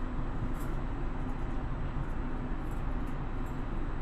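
Steady low hum and rumble inside a standing Kanazawa Seaside Line driverless guideway car, from its onboard equipment, with a few faint ticks.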